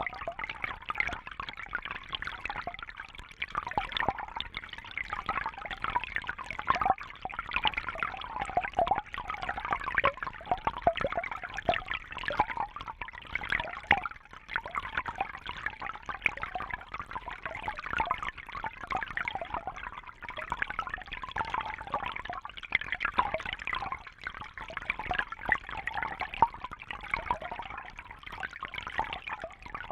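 Babbling brook: a steady flow of water with continuous quick, irregular gurgles and small splashes.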